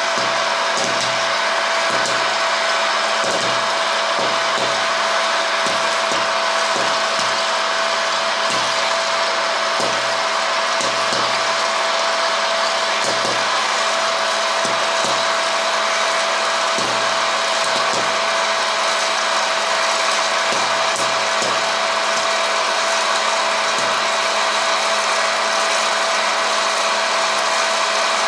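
Electric hot-air popcorn machine running: its fan blows steadily with a constant whine, and scattered sharp pops come from kernels popping and corn being blown out of the chute.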